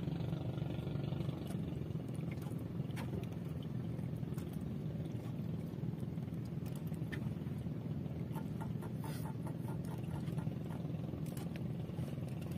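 A small engine running steadily with a low drone, with occasional clicks and scrapes as the fishing line is hauled in over the boat's rail.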